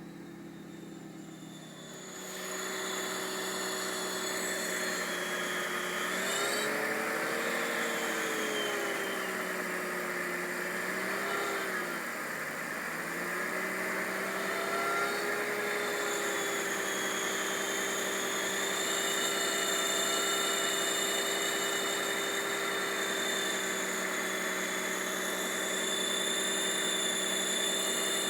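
BMW 325i straight-six engine running with a high-pitched whining whistle over the engine note, the whine the owner hears only after a cold start. The revs rise about six seconds in, drop back a few seconds later, then hold steady.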